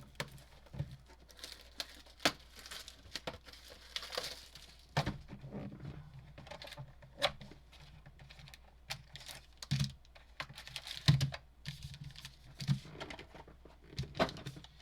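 Hands opening a sealed box of football trading cards: irregular clicks and taps with tearing and crinkling of plastic wrap and cardboard.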